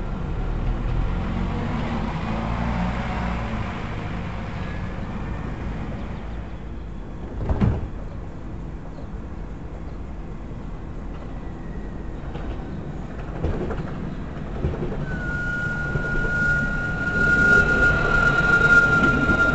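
Light-rail trams: a low rumble from a tram moving off, easing away, and a single sharp knock about halfway through. Then a second tram comes in along the platform with a steady high whine that gets loud near the end.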